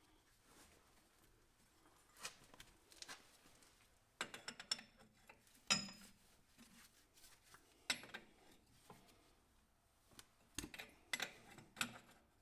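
Scattered metallic clicks, knocks and clinks of hand tools and hydraulic hose fittings being handled, in small clusters. The loudest is a sharp clink with a brief ring about six seconds in.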